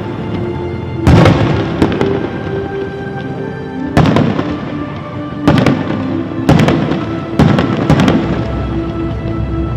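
Dubbed-in fireworks sound effect: a series of sharp booms with crackling tails, about six in this stretch, laid over background music with held notes. The sound is illustrative, not the actual display's sound.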